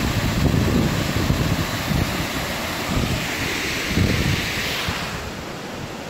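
Steady rush of a cascading mountain waterfall, with wind buffeting the microphone in low gusts. The rush drops a little near the end.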